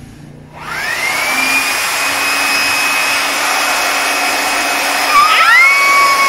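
Handheld electric air blower switched on about half a second in: the motor whine rises quickly to a steady high pitch over a loud rush of air. About five seconds in, a second, higher tone joins and holds for a couple of seconds.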